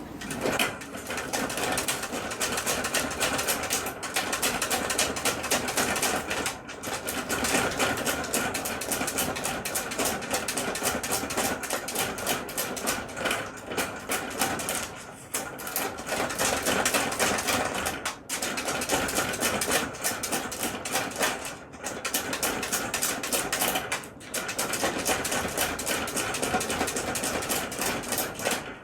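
A miniature dachshund frantically scratching and pawing at its cage, a fast rattling clatter that pauses briefly every few seconds.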